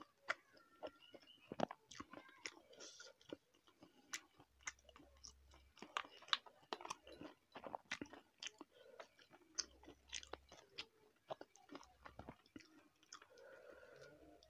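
A person chewing and crunching food close to the microphone: a steady run of short, sharp crunches and mouth clicks.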